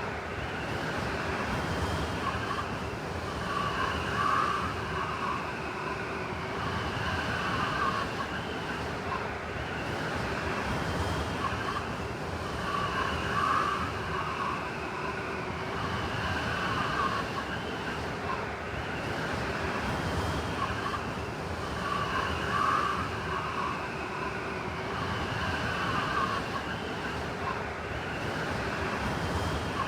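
Blizzard wind howling steadily, with whistling gusts that swell and fade every few seconds.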